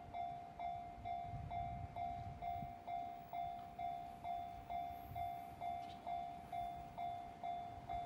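Japanese railway level-crossing alarm ringing steadily: a repeated bell-like 'kan-kan' tone, about two strokes a second, each stroke decaying before the next. It is the warning that a train is approaching and the barriers are down.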